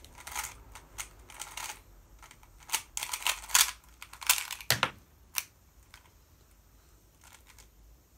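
Plastic 3x3 puzzle cube being turned fast by hand: rapid clusters of clicking and clacking as its layers snap round. About four and a half seconds in comes a louder knock, as one piece pops out of the cube and lands on the desk; after that the clicks are few and faint.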